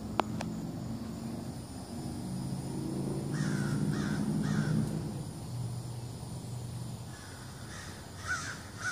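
Crows cawing in short harsh calls: three in quick succession about three and a half seconds in, and more near the end, scolding over a low rumble that swells and fades in the middle. A sharp click just at the start.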